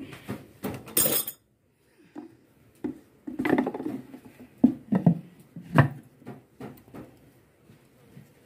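Wooden churning stick being worked by hand in an earthen pot of yogurt: irregular knocks and scrapes of wood against clay, with a brief loud scrape about a second in and a short gap just after.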